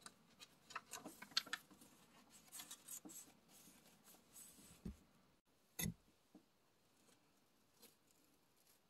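Faint handling of paper journal pages: crackly rustling and light scratching for the first few seconds, then two soft thumps about five and six seconds in.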